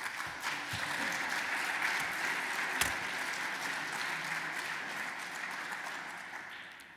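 Audience applauding, a steady spell of clapping that dies away near the end.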